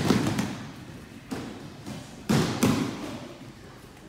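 Several kids doing backward breakfalls on foam grappling mats: a scatter of thuds and hand slaps on the mat, one group right at the start and another, about as loud, around two and a half seconds in.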